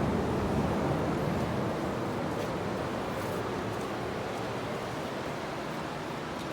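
Ocean surf washing over the rocks as a steady, even rush that eases slightly toward the end.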